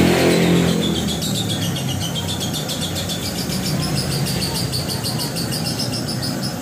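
A motor vehicle's engine passes and fades out within about the first second. After that a cricket trills in rapid, even pulses over a steady low hiss.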